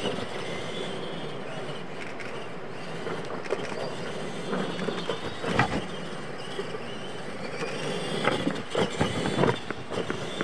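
R/C monster trucks racing on a dirt track: motors whining, rising and falling in pitch as the drivers work the throttle, with tyres on dirt and sharp knocks and clatter from the trucks hitting ramps and the ground, one loud knock about halfway through and a cluster of them near the end.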